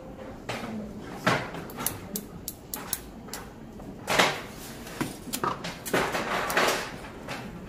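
Hair-cutting scissors snipping through synthetic wig hair in quick, irregular clicks while texturizing, with a few longer rustling strokes through the hair about four and six seconds in.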